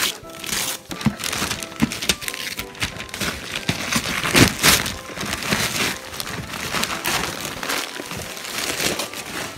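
Christmas wrapping paper being ripped and crumpled off a gift box by hand: a continuous run of irregular tearing and crinkling, loudest about halfway through.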